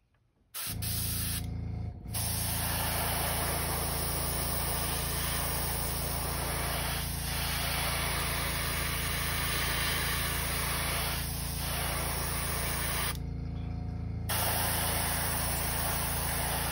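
Airbrush spraying Alclad aluminum lacquer paint through netting onto a crankbait: a steady hiss of air and paint over the steady hum of the air compressor. It starts about half a second in, and the spray breaks off briefly twice, near two seconds and about thirteen seconds in, while the compressor keeps running.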